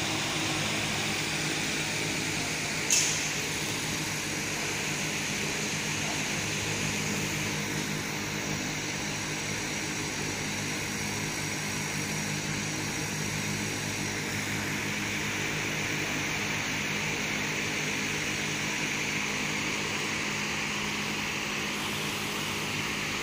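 Steady hum and whoosh of a CO2 laser engraving machine running, its fans and motors droning evenly, with one sharp click about three seconds in.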